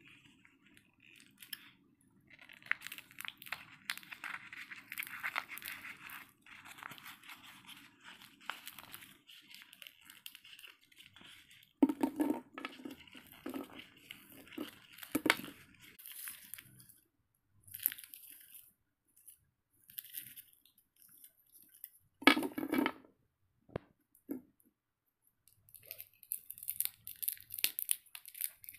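Plastic sweet wrappers crinkling and tearing under the fingers as a Centerfruit chewing gum packet is torn open and the gum pieces are unwrapped from their clear wrappers, in uneven bursts of crackling. A few louder thumps of handling come through, the biggest about halfway through and again a little later.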